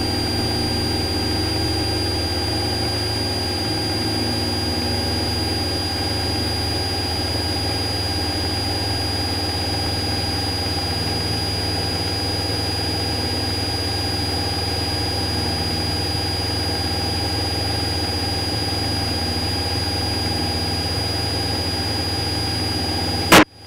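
Cessna 172SP's Lycoming IO-360 four-cylinder engine and propeller running steadily at full takeoff power, an even drone with a thin high whine over it. A sharp click and brief dropout near the end.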